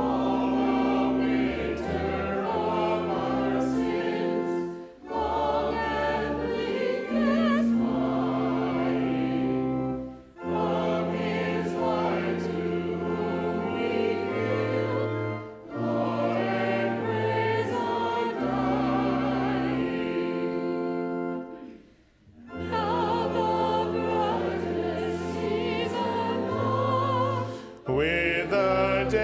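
Church choir and standing congregation singing a hymn with keyboard accompaniment, in phrases with short breaks between the lines over held low chords.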